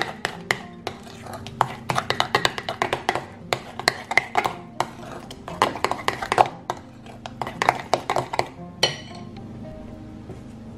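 Metal spoon beating a creamy batter in a glass bowl, clinking and scraping against the glass in quick, uneven strokes; the beating stops about nine seconds in.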